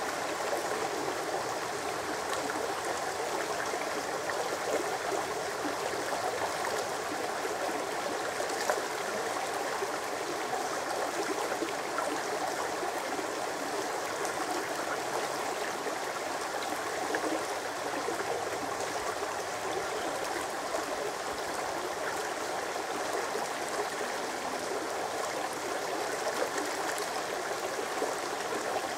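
Shallow, rocky brook babbling steadily as water runs over and around stones in small riffles.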